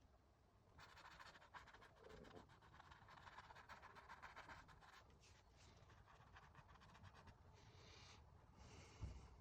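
Faint scratching of a paintbrush working oil paint on canvas, in uneven stretches of strokes, with a soft thump near the end.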